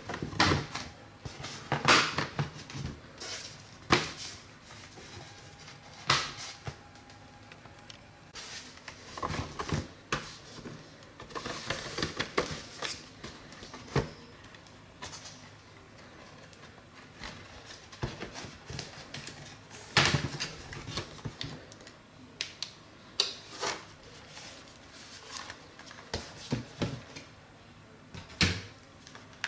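Plastic retaining clips of a Dell Inspiron 15 5000 series laptop's bottom cover snapping loose one by one as a guitar pick is run along the case seam: irregular sharp clicks and snaps with light plastic scraping between them.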